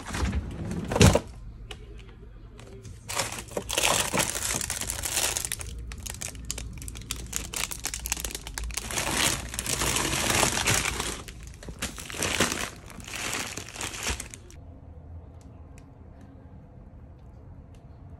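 A freezer drawer is pulled open with a sharp knock about a second in. Then plastic bags of frozen bread crinkle and rustle as they are rummaged through, stopping abruptly near the end.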